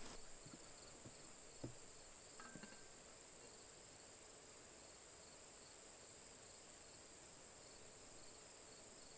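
Crickets chirping steadily, a faint continuous high trill, with a couple of soft knocks in the first few seconds.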